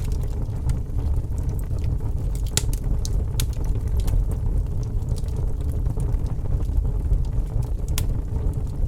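Fireplace crackling, with a scattering of sharp pops, over a steady low rumble of rain.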